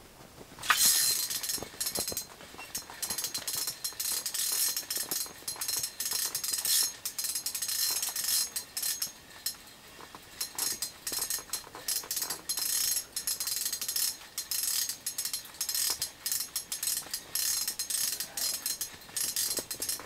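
Fishing reel on a short ice rod being cranked in stop-start bursts, a dry, rapid clicking and ticking.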